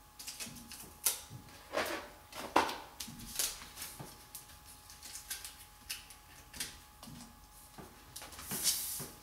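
Paper-backed vinyl wall decal being handled against a wall: crinkling and rustling of the sheet and its tape as it is pressed and shifted into place, with scattered light taps and clicks and a longer rustle near the end.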